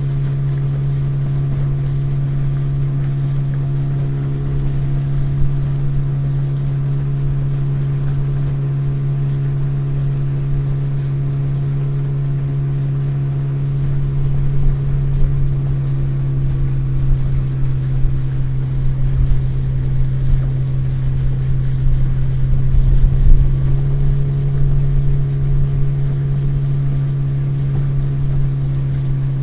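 Motorboat engine running steadily at cruising speed, a constant low hum with overtones. From about halfway through, uneven low thuds come in, strongest a little after two-thirds of the way, as the boat runs over choppier water.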